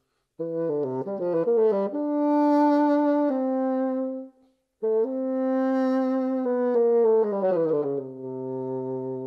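Bassoon playing a solo melody: a quick run of notes, then long held notes, a brief break for breath a little before the middle, and a falling line that ends on a low held note.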